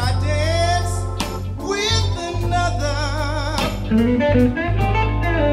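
Live blues band music: electric guitar over bass and drums, with a man singing held notes with vibrato.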